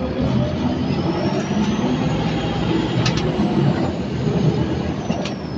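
Scania N230UD Omnicity bus's five-cylinder diesel engine running under load, with a thin high turbocharger whistle that rises in pitch over the first few seconds and then falls away near the end. Two sharp clicks stand out, about three and five seconds in.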